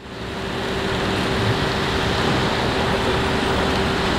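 Steady street ambience: a constant wash of traffic noise with a faint steady hum, fading in over the first half second.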